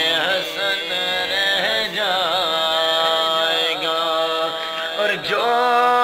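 Islamic devotional song in the naat style: a voice holding long, wavering melismatic notes.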